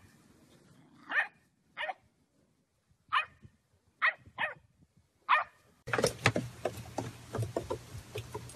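A dog barking in short, separate yaps, six in all over about four seconds. From about six seconds in, a steady low hum and a patter of small clicks and rustling take over.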